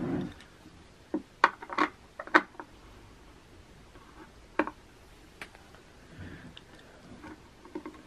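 Hands twisting a black-painted wooden drawer knob loose through a cloth: a dull knock, then a run of sharp clicks and taps, with two more a few seconds later.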